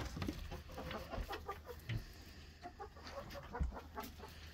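Chickens clucking softly, many short scattered calls, with a couple of soft thumps about two and three and a half seconds in.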